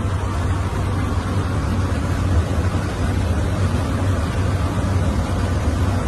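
Steady aircraft cockpit noise in cruising flight: an even rush of air over a constant low hum.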